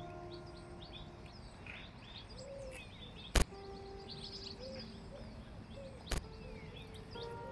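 Songbirds chirping in short, scattered calls, over a few faint held tones. Two sharp knocks cut through, a loud one about three and a half seconds in and a softer one about six seconds in.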